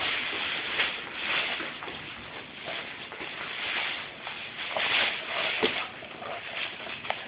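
Rustling and scuffling of fabric as Airedale puppies scramble over a nylon play tunnel and towels, coming in uneven surges.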